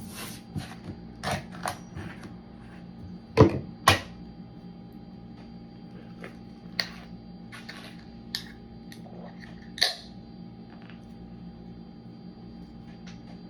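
A beer can being handled and opened to be shotgunned: a series of small clicks and knocks, with two loud sharp cracks about three and a half seconds in. After that come only a few scattered clicks while the beer is drunk.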